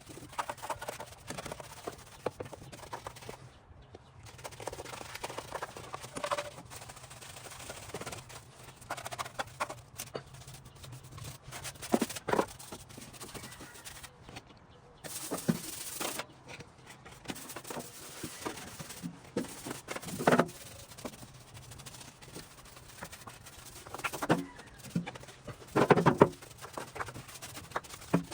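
Scattered handling sounds of an engine bay being dried off by hand: irregular rubbing with occasional clicks and knocks against the parts, over a faint steady hum.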